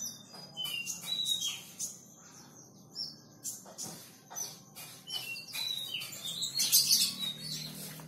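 Caged sunbird (kolibri) singing a fast, varied string of high chirps, short sweeps and trills, its song filled with imitations of other birds' calls. It is loudest about three-quarters of the way through.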